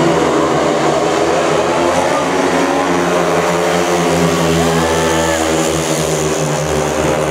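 Four speedway bikes' 500cc single-cylinder methanol engines racing flat out together, a loud, steady layered engine note that wavers in pitch as the riders throttle through the bend.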